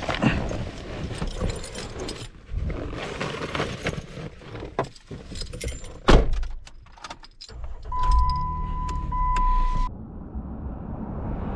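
Handling noises of getting into a car: irregular clicks and knocks, keys, and one heavy thump about six seconds in. Near the end the engine runs low underneath a steady electronic warning beep that lasts about two seconds.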